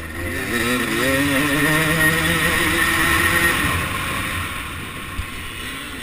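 1989 Suzuki RM250 two-stroke single-cylinder motocross engine, heard onboard, revving up hard over the first second or so. It holds high revs for about two seconds, then backs off and drops in pitch and loudness.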